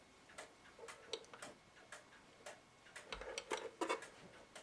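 Antique cuckoo clock movement ticking steadily, about two ticks a second, with a short run of mechanical clicks and rattles about three seconds in. At the half hour the strike does not go off: no cuckoo call or gong is heard.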